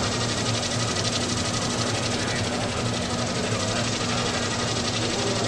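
Lockheed Martin Samarai monowing micro air vehicle in flight: a steady mechanical buzz with a low hum.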